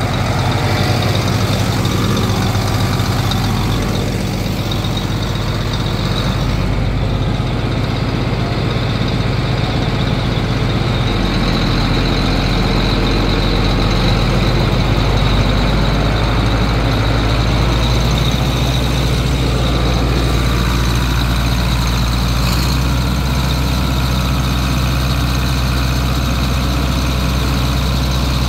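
John Deere 8640 tractor's turbocharged six-cylinder diesel engine running steadily, with a faint steady high whine alongside its low note.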